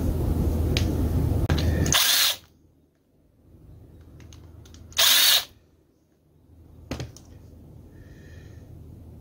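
Small power screwdriver backing out the screws of a STIHL MS180C chainsaw carburetor. It runs steadily and stops about two seconds in, then gives one short burst about five seconds in. A small click follows near seven seconds.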